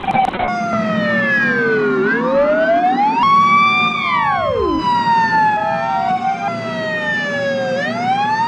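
Ambulance siren wailing in slow falling-and-rising sweeps, with a second siren overlapping from about three seconds in, one of its tones dropping steeply. A steady low vehicle drone runs underneath.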